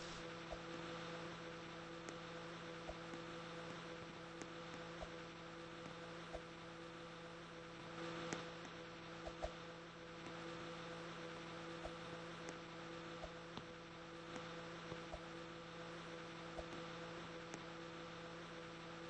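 Microwave oven running: a steady electrical hum over an even whir of fan noise, with scattered faint ticks.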